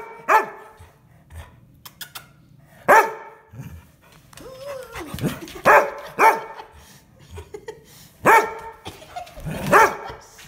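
Dog barking: about six separate loud barks, one to three seconds apart.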